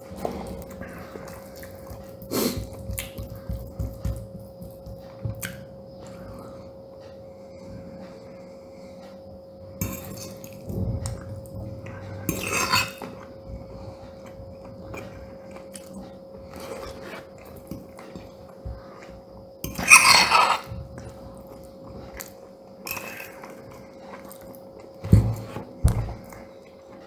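Metal cutlery scraping and clinking against a ceramic plate of saffron risotto while eating, with a louder scrape about twelve seconds in and another around twenty seconds. A faint steady hum runs underneath.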